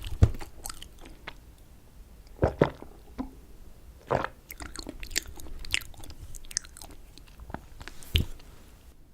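Close-miked chewing of raspberry cheesecake: irregular wet mouth clicks and smacks, with a few louder bites.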